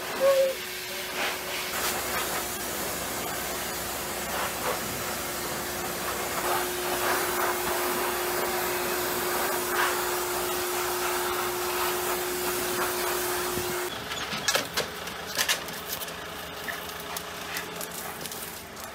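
A dog grooming blow dryer running steadily with a whooshing hiss and a steady hum as it is worked over a dog's coat. It cuts off abruptly about 14 seconds in, leaving a quieter background with a few light clicks and taps.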